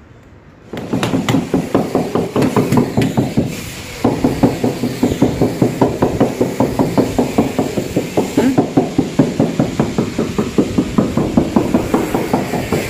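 Rapid, steady knocking on a marble slab, about four strokes a second, with a short break about three and a half seconds in: the slab being tapped to bed it into the tile adhesive on the wall.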